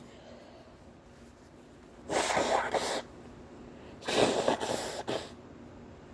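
A person sneezing twice in a fit, about two seconds in and again about four seconds in, each sneeze lasting around a second.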